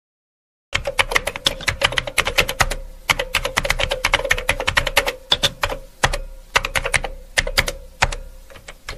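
Rapid keyboard typing clicks starting about three-quarters of a second in, a typing sound effect matching text being typed out letter by letter, with a faint steady hum underneath.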